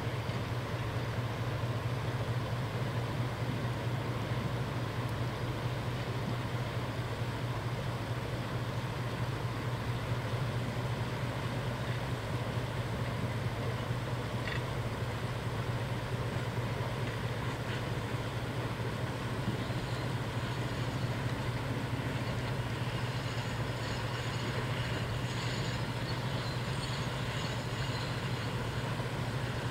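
A steady, unchanging low engine drone of a heavy vehicle, like a diesel locomotive at idle.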